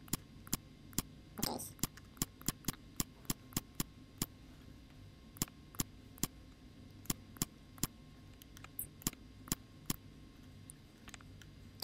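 Computer mouse clicking, irregular single clicks about two or three a second with a short pause near the middle, over a faint steady low hum.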